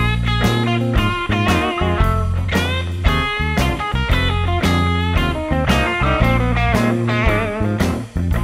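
Background music: a guitar-led track with a steady beat and some bent, wavering notes.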